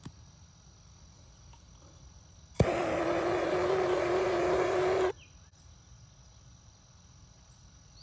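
Handheld torch lit with a sharp click, then burning with a steady hiss and a low held tone for about two and a half seconds before cutting off suddenly. It is heating the 1/2-inch poly drip tubing to soften it so a T connector can be pushed in.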